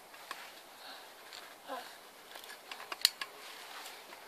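Faint background hiss with scattered light clicks and taps, the sharpest about three seconds in, and a brief soft pitched sound a little before halfway.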